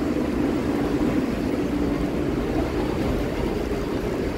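Steady hum and low rumble on a metro platform with a C381 train standing at it. No single event stands out.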